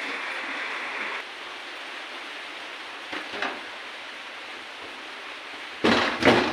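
Steady hiss of running water that stops sharply about a second in, a couple of light clinks a few seconds later, then loud bumps and rubbing near the end as the phone is picked up and handled close to its microphone.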